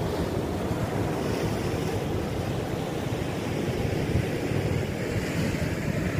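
Sea surf washing and breaking against a rocky shore, a steady rushing noise, with wind buffeting the microphone in a ragged low rumble.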